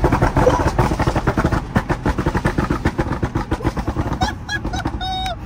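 Porsche Cayenne's swapped 4.8-litre V8 exhaust crackling in a rapid, irregular run of pops and bangs, heard from inside the cabin. Near the end a man lets out an excited shout.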